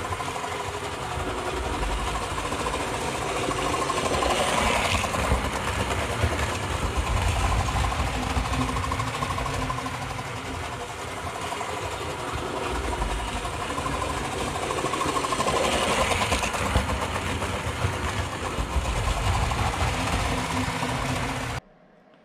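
Tri-ang Hornby OO gauge model trains running on metal track, a dense mechanical rattle from the motors and wheels with a faint motor whine. The noise swells twice as a train passes close, then cuts off suddenly near the end.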